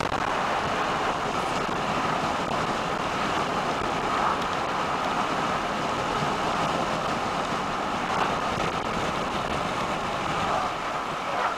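Steady road and wind noise of a car driving at about 80 km/h on a motorway, heard inside the cabin.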